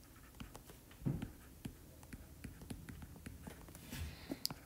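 Stylus tapping and scratching on a tablet screen during handwriting: faint, irregular light clicks.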